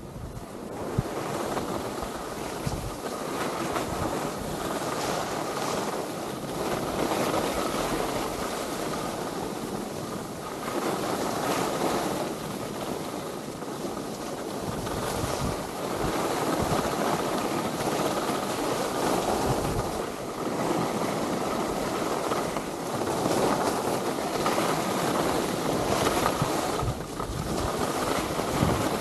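Skis hissing and scraping steadily over snow, with wind buffeting the microphone and the sound swelling and easing as the skier moves.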